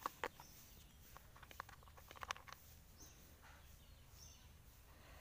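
Faint clicks and taps of hands working on a water pump's switch housing and wiring, the loudest right at the start and about two seconds in, over a low hum. A short high chirp sounds three times in the second half, about a second apart.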